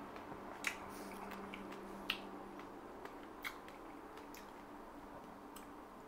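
Faint eating and handling sounds: half a dozen small, sharp clicks and squishes as berries are picked off a plate and eaten, over a steady low hum.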